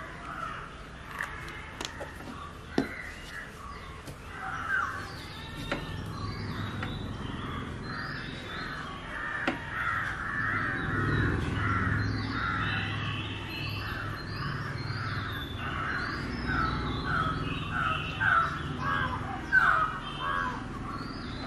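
Crows cawing over and over in a long run of calls, with a few sharp clicks in the first few seconds and a low background rumble.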